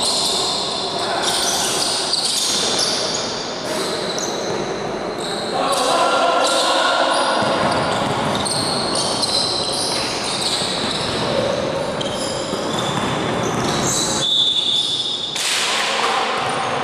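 Indoor basketball game: a basketball bouncing on the court floor amid players' voices calling out, echoing in a large gym.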